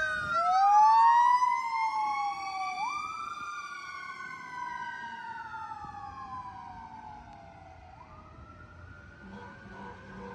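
Fire engine siren wailing, two tones slowly rising and falling across each other, fading steadily as the truck drives away.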